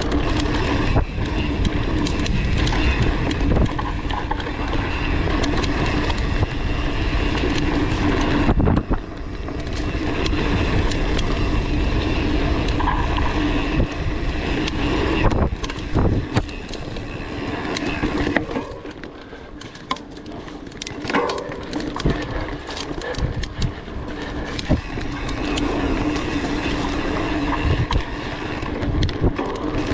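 Mountain bike ridden fast along a dirt singletrack: tyres rumbling on the trail and the bike rattling over bumps, with wind buffeting the microphone. The noise eases briefly a little after halfway.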